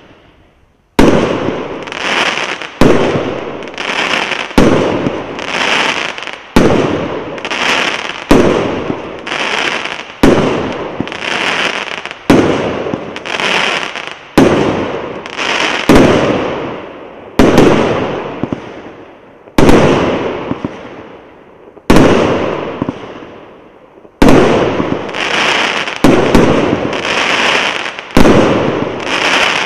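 A 100-shot, 1.2-inch consumer firework cake ('Zvezdopad') firing shot after shot, starting about a second in. A loud report about every two seconds, with smaller bangs and crackle between them as each burst dies away.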